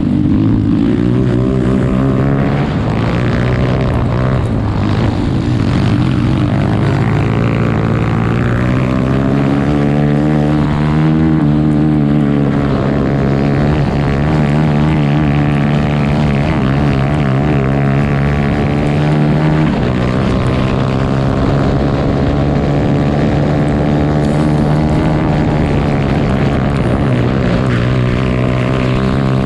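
Grass racing kart's engine running hard, heard from on board, its pitch rising and falling as the throttle is lifted and reapplied, with a sharp drop in revs about two-thirds of the way through.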